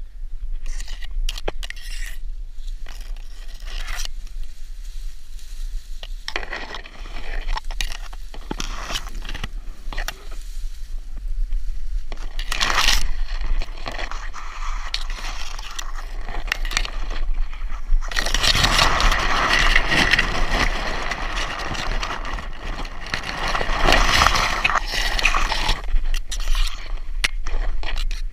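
A person pushing on foot through tall dry grass and weeds: irregular rustling, scraping and crackling of stalks against legs and underfoot, busiest about two-thirds of the way through.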